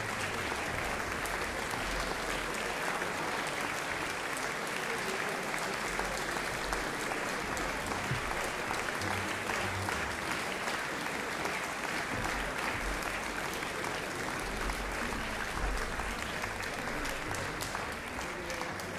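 Concert audience applauding steadily after the symphony's close, a dense, even clapping.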